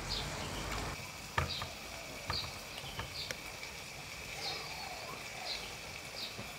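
A few sharp clicks of chopsticks against dishes and the tabletop grill pan, with a bird chirping in short calls about once a second in the background and a faint steady high tone.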